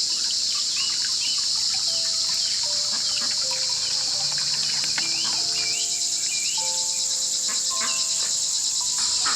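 A steady, loud, high-pitched chorus of insects, turning pulsing a little over halfway through, with scattered bird chirps and a soft melody of held notes underneath.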